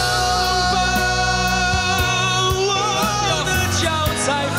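Two male singers belting a rock-ballad chorus over a band accompaniment, holding long notes with vibrato above a steady drum beat.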